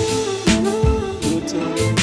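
Background music with a melody and a beat.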